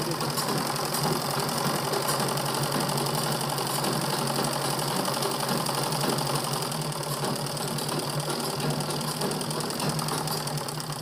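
A black Gulzar domestic sewing machine running steadily, needle stitching rapidly as a binding strip is sewn down onto fabric.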